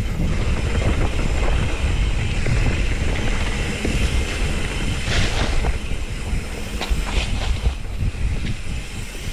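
Mountain bike riding down a rough dirt singletrack: a steady rumble of the tyres over the ground with frequent knocks and rattles from the bike.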